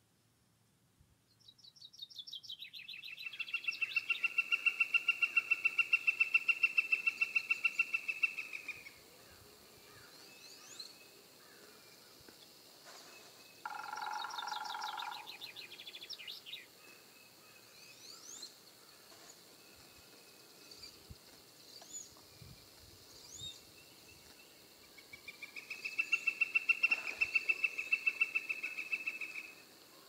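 Northern flicker giving its long call: a fast, even run of identical high 'wik' notes held for about seven seconds, growing louder, then a second run of about four seconds near the end. Short chirps from smaller birds come in between.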